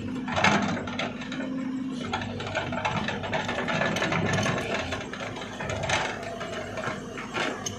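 JCB tracked excavator's diesel engine running steadily under load as it swings and dumps a bucket of soil into a tipper truck, with metallic clanks and knocks from the bucket and linkage, the sharpest about half a second in, around six seconds in and near the end.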